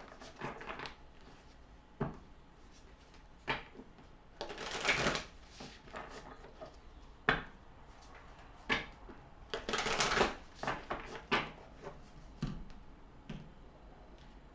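Tarot cards being shuffled by hand: two longer shuffling bursts about five and ten seconds in, among scattered sharp card snaps and taps.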